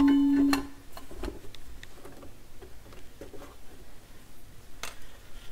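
A turntable's bare metal platter rings like a bell after being knocked, and the ring dies out within the first second as the rubber mat goes on. After that come only faint scattered clicks and handling taps.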